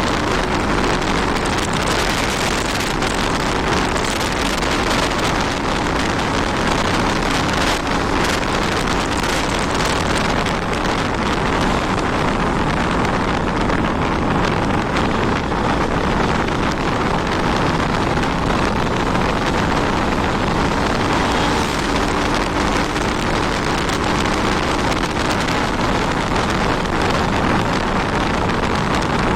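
Steady wind rush on the microphone while riding a Honda 160 motorcycle, with the engine running evenly underneath.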